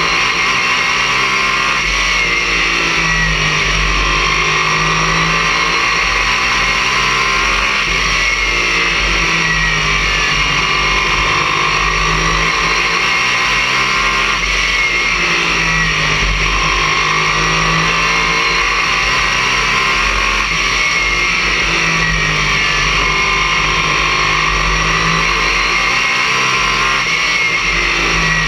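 Race car engine at full racing speed, heard from inside the cockpit, loud and steady with a noisy edge, its pitch dipping and rising again every few seconds as it laps the oval.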